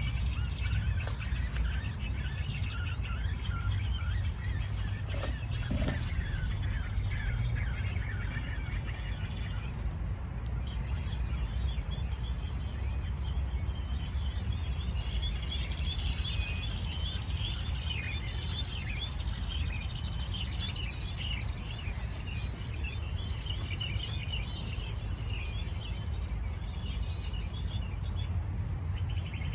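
Many small birds chirping and twittering in quick, overlapping calls, over a steady low rumble.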